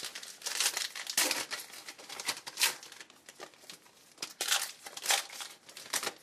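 Foil wrapper of a 2010 Contenders basketball card pack being torn open and crinkled by hand: a run of irregular, sharp crackles.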